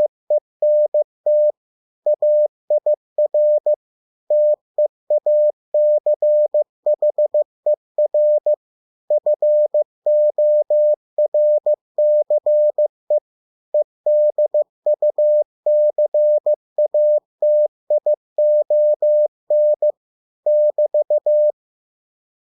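Morse code: English words sent at 15 words per minute as a single mid-pitched beep keyed on and off in dots and dashes, with short pauses between words. The beeping stops near the end.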